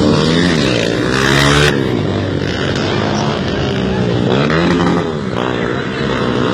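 Motorcycle engine revved up and down repeatedly, its pitch rising and falling about once a second, with a short burst of hiss about a second in.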